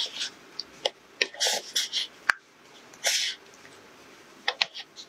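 Thin steamed rice-noodle sheet being peeled off a metal baking tin and folded: short hissy, sticky peeling sounds with a few sharp clicks.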